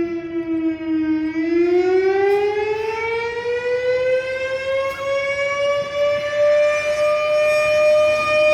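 Federal Signal STH-10 electromechanical fire siren sounding for a fire call. Its tone dips slightly in the first second, then winds up steadily in pitch over about six seconds and holds high near the end.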